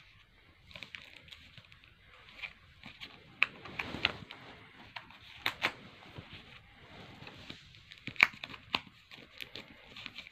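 Plastic comic-book bags crinkling and rustling as a stack of bagged comics is handled and shuffled, with irregular sharp crackles.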